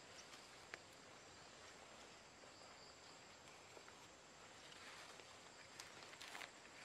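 Near silence: faint outdoor background with a few soft rustles and ticks as hands handle grass and the edge of a nylon poncho, once about a second in and a few near the end.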